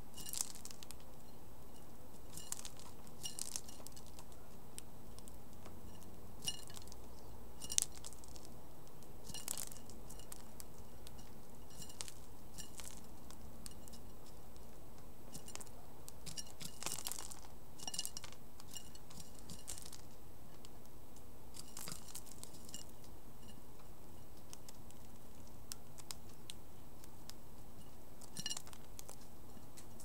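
House sparrows pecking and cracking seed in a plastic seed saucer: scattered sharp clicks and small crunches at irregular intervals, over a steady background hiss.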